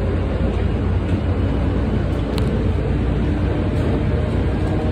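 Tokyu 8500 series electric train standing at an underground platform, giving a steady low hum and rumble with no distinct knocks or changes.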